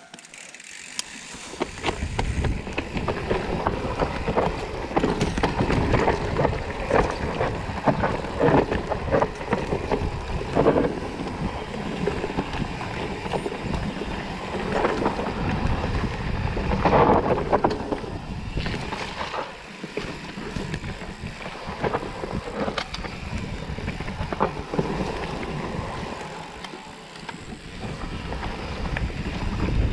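Mountain bike rolling fast down a dirt forest trail: tyres rumbling over the ground, wind buffeting the microphone, and frequent short knocks and rattles from the bike over bumps. It starts quiet and builds within the first two seconds, with brief easings about two-thirds of the way through and again near the end.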